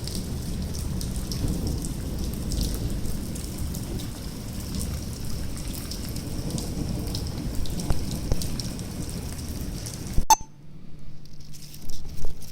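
Hail and rain pelting down in a storm: a steady hiss laced with many small sharp ticks of hailstones striking. About ten seconds in it cuts off abruptly with a click, leaving a low steady hum and a few louder knocks.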